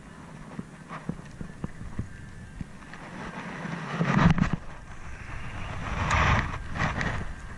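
Handling and casting of a spinning rod and reel: scattered light clicks, a louder swish about four seconds in, and a rustling swell about six seconds in.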